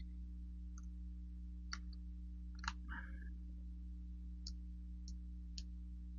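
A few faint, scattered metallic clicks of small shotgun lock parts and the lock screw being handled and fitted, over a steady low hum.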